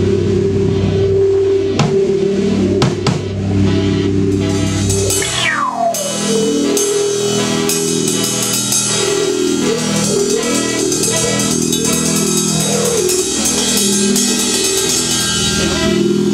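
Rock band playing an experimental instrumental: a droning chord is held for about five seconds, then a long falling glide slides down, and drums, cymbals and guitar come in and carry on.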